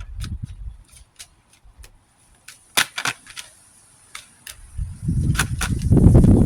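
Oracle cards being handled and shuffled: a scatter of sharp card clicks and taps, two louder snaps about three seconds in, then dull rumbling handling noise close to the microphone from about five seconds in.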